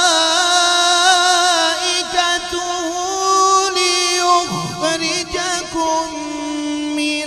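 Male qari's Qur'anic recitation (tilawat) in melodic tajweed style: long, drawn-out notes with ornamented, wavering pitch. The held line breaks briefly about four and a half seconds in, then a new note is taken up and held.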